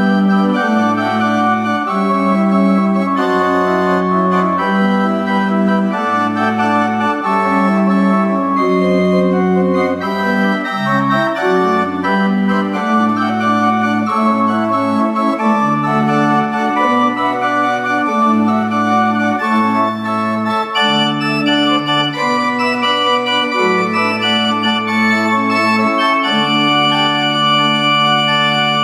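Historic English pipe organ playing a slow chordal piece over a moving bass line, the chords changing every second or so, and ending on a long held chord near the end.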